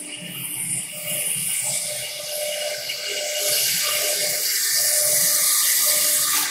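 CNC router spindle cutting acrylic sheet: a steady spindle whine under a harsh hiss from the bit milling the plastic. The hiss grows louder over the second half and drops away sharply at the very end.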